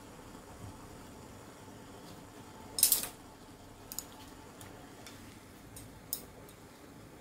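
Water at a rolling boil in a glass pot on a portable gas burner, a steady low bubbling hiss. Over it come a few sharp clicks: the loudest is a quick double click about three seconds in, and lighter ones come near four and six seconds.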